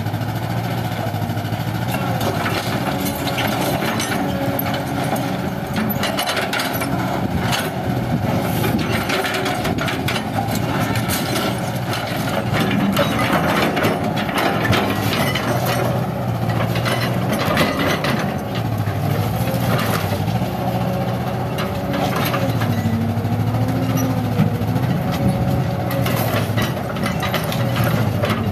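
Kobelco SK200 hydraulic excavator working, its diesel engine running steadily with the note dipping and rising now and then. Many short knocks and scrapes sound over it as the steel bucket works broken concrete rubble.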